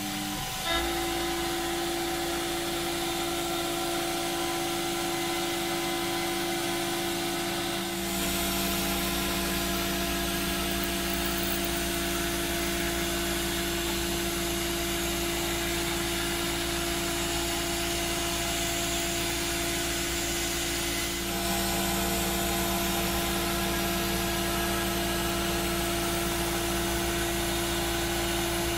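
Electric motor of a workshop machine running steadily with a constant hum. The sound shifts about 8 seconds in and again about 21 seconds in, when the low rumble and lower hum change.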